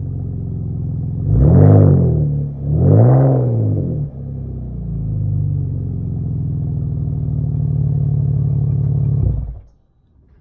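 BMW 525i inline-six exhaust through a Jones turbine muffler with the resonator and mid muffler deleted: idling, then two quick revs a little over a second apart, each rising and falling in pitch, then back to a steady idle. The sound cuts off about nine and a half seconds in.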